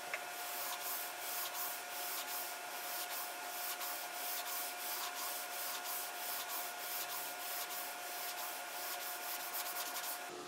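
Guitar fingerboard being hand-sanded with a long sanding block and 120-grit sandpaper, in quick back-and-forth strokes about three or four a second that get faster near the end. The sanding blends out high spots to get the fingerboard level.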